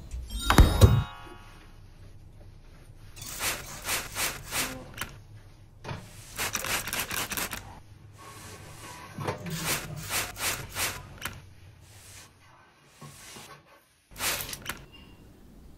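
A loud swoosh falling in pitch just under a second in, then clusters of short hissing strokes, about three a second, from kitchen cleaning with a trigger-spray cleaner and a cloth.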